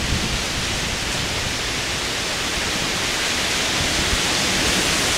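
Heavy thunderstorm rain pouring down in a steady, dense hiss, growing a little louder past the middle.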